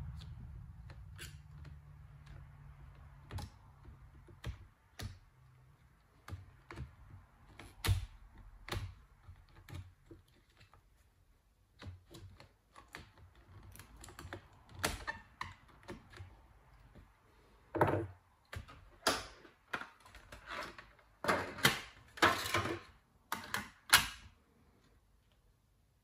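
Irregular light clicks and taps of a small screwdriver and fingers on the plastic and metal parts of an open laptop. Near the end comes a cluster of louder clicks and clatters as the laptop's 2.5-inch hard drive is worked loose and lifted out.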